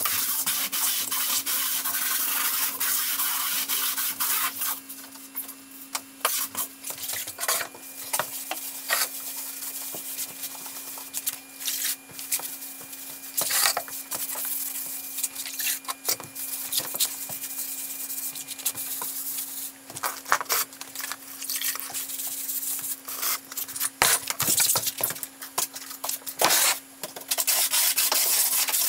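Hand work on a plywood subfloor: scraping and rubbing against the wood, broken by many quick clicks and knocks, over a steady low hum.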